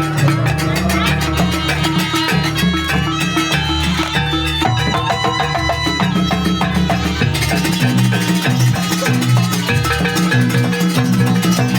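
Loud live Banyuwangi jaranan ensemble music: drums, gongs and ringing metal keyed percussion playing a fast sampak accompaniment for the dance.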